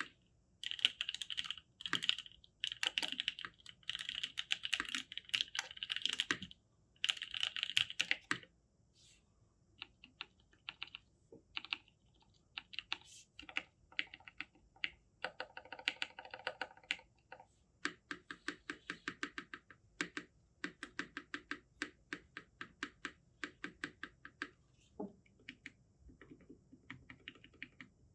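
Typing on an F1-8X WKL mechanical keyboard with lubed NovelKeys Cream linear switches and GMK Signal keycaps. The keystrokes come fast and dense for about the first eight seconds, then slower and evenly spaced.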